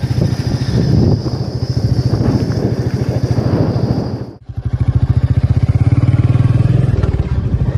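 Motorcycle running at riding speed, a dense pulsing low rumble, with a steady high tone over it in the first half. About halfway through the sound breaks off and cuts straight to another stretch of riding.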